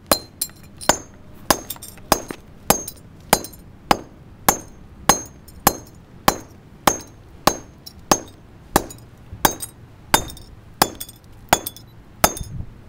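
Sharp clinking knocks in a very even rhythm, about one and a half a second. Each knock carries a short, high metallic ring.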